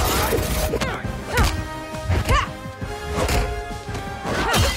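Action-movie fight soundtrack: a music score under a quick string of punch, hit and crash sound effects, about eight in under five seconds.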